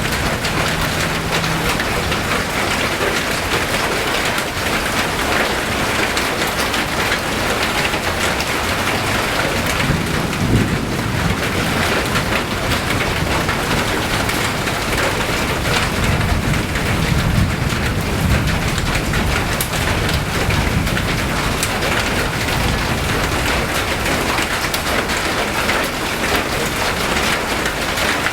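Steady rain falling, with a low rumble swelling up twice around the middle.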